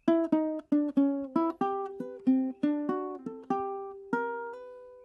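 A short melody on a plucked string instrument: about a dozen quick single notes, each dying away, then a last note about four seconds in left ringing and fading.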